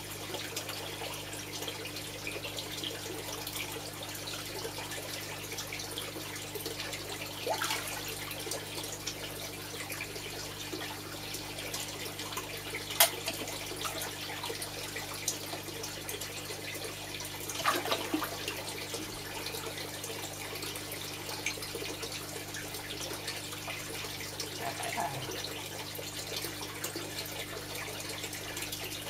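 Koi splashing and sucking at the water surface as they feed from a hand, over steadily running water and a steady low hum. Several louder splashes break through now and then.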